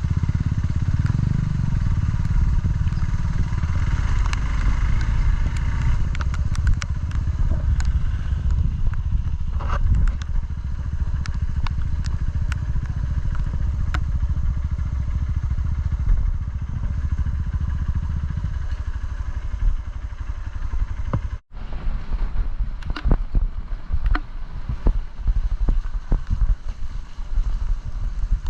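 Dual-sport motorcycle engine running steadily while riding a rough dirt trail, with frequent sharp knocks and clicks over the top. The sound drops out for an instant about 21 seconds in.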